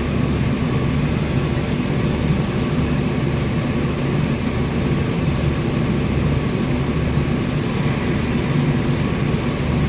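Car engine idling steadily with the air-conditioning compressor engaged, a constant low hum. The compressor has come on after the first 12 oz can of refrigerant was added, a sign that the system now has enough charge to cycle on.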